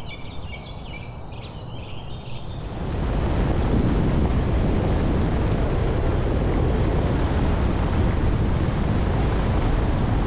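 Birds chirping over a low rumble for the first couple of seconds. Then, about three seconds in, loud steady wind and road noise from a truck driving on a gravel road, with wind buffeting the microphone.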